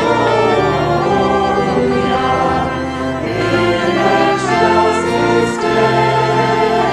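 Organ music with singing voices: a hymn, with sustained chords over a bass line that moves every second or so.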